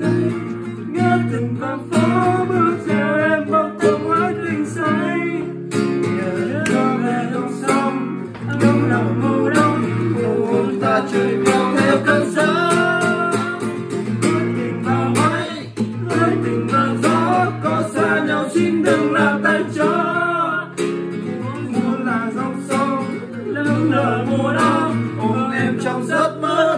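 Acoustic guitar played in a steady accompaniment, with a man singing along to it.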